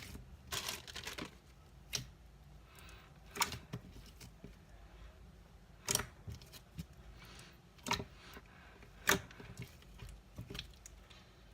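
Slime being squeezed and pressed by hand, giving off a series of sharp popping clicks of trapped air, about seven in all.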